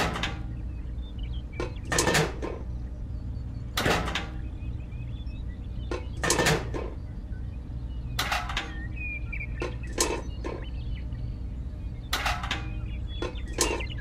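A steady low hum with about a dozen sharp clicks and knocks scattered irregularly through it.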